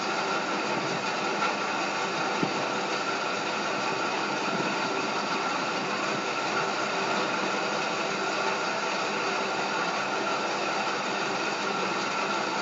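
Steady machine-like background noise: an even hiss with a faint constant hum and no speech. A faint click comes about two and a half seconds in.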